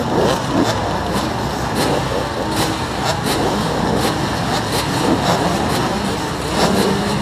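Many dirt bike engines idling and blipping their throttles together, a jumble of overlapping revs with no single engine standing out, as riders wait lined up for a motocross start.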